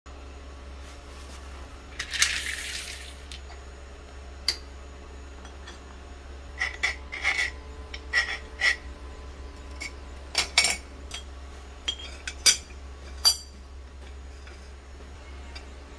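Aluminium T-slot extrusion profiles and their metal fittings clinking and knocking against each other and the stone floor as they are handled and laid into a frame: a scattered run of sharp clicks, with a brief rattle about two seconds in.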